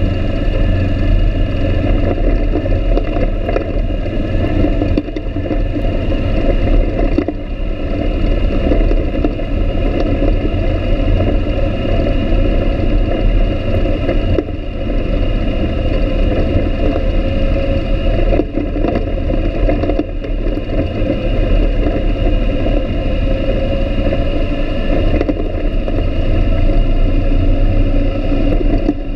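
ATV (quad) engine running steadily while riding along a dirt trail, heard from on board the machine, with a strong low rumble.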